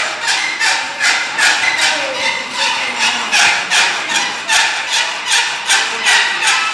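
Hand file being pushed across a metal workpiece held in a bench vice: a steady run of harsh rasping strokes, about two a second, each with a faint ringing pitch.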